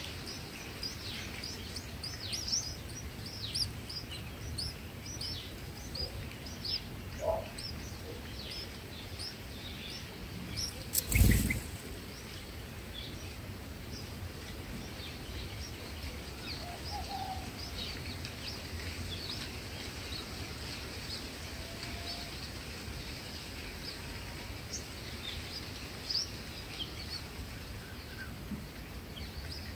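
Small birds chirping: many short, high chirps, thick in the first several seconds and sparser after, over a steady low outdoor rumble. About eleven seconds in there is a single brief loud whoosh.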